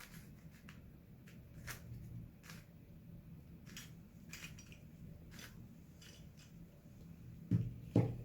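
Hands handling a plastic puzzle cube and its packaging: scattered faint clicks and ticks, then two dull knocks near the end as something is set down.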